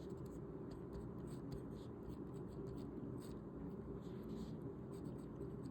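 A pen writing on paper in short, faint scratching strokes as Chinese characters are handwritten, over a low steady room hum.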